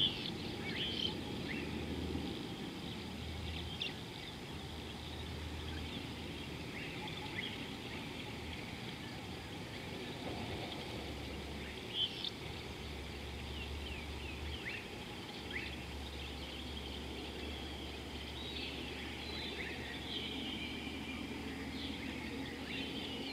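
Scattered short bird chirps and trills over a steady outdoor background hiss, with a low hum that comes and goes.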